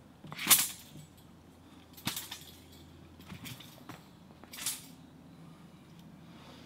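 Chinese straight sword (jian) swishing through the air in quick cuts: a few short whooshes, the first and loudest about half a second in, another sharper one about two seconds in and a last one near the end.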